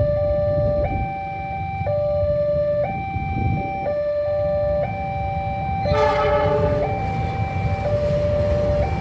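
Railway level-crossing warning alarm: an electronic siren alternating steadily between a lower and a higher note, over a low rumble of road traffic. About six seconds in a loud horn sounds for about a second.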